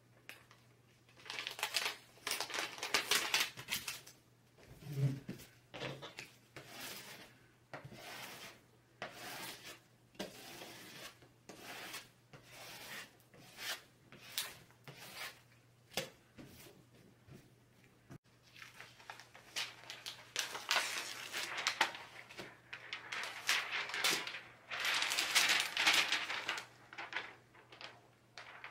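A plastic smoother rubbing and scraping across a peel-and-stick adhesive sheet as it is pressed onto the back of a jigsaw puzzle, with hands pressing and the sheet crinkling. The strokes are irregular and come in busier spells near the start and again in the last third.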